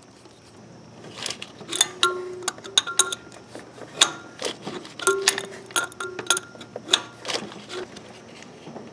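Adjustable wrench tightening an oil pressure sensor into brass pipe fittings: irregular sharp metallic clicks and clinks starting about a second in, a few with a short ring.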